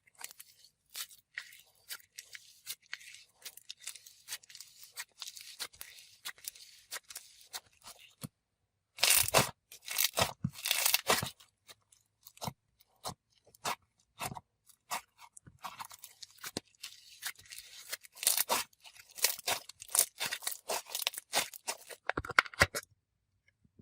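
Snowfish slime being squished and stretched by hand, giving off dense sizzly crackles and pops, with a louder run of pops about nine to eleven seconds in.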